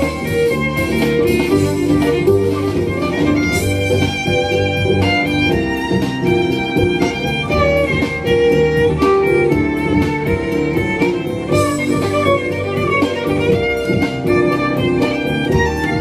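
Violin and double bass duo playing an up-tempo instrumental: a bowed violin melody over a plucked double bass line, with many quick, rhythmic notes.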